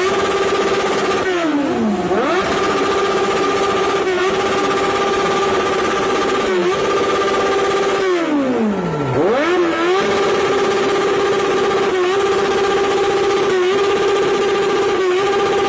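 Kawasaki motorcycle engine held at steady high revs, dipping briefly about every second and a half. Twice the revs fall sharply and climb back, about a second in and again about eight seconds in.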